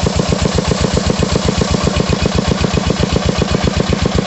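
20 PK single-cylinder diesel engine running steadily with an even beat of about ten firing knocks a second as it belt-drives a 6-inch Kawamoto irrigation pump. The water gushing and splashing from the pump's outlet pipe makes a steady rushing under the engine beat.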